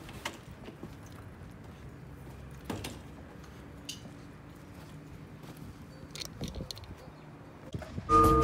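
Faint scattered clicks, knocks and rustling of handling noise. Background music starts near the end.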